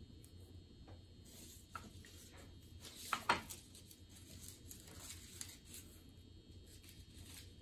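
Faint scattered taps and rustles from craft materials being handled, with one sharper tap about three seconds in, over a low steady hum.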